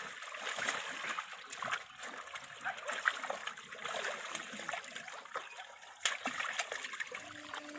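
Water splashing and trickling irregularly around a fishing net full of live fish as it is hauled and handled in shallow water, with a sharper splash about six seconds in.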